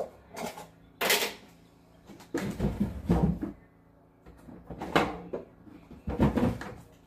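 Kitchen handling sounds: a run of knocks, thuds and clatters as containers are picked up and set down and a plastic tub of butter spread is handled, with a longer spell of low thuds and rattling a few seconds in.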